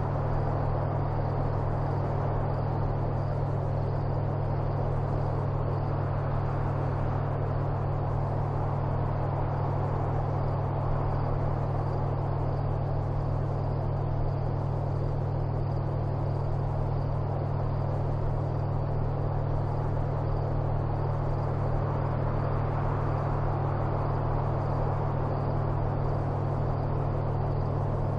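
Steady low hum with a constant rushing hiss over it, unchanging in level and pitch, with no speech.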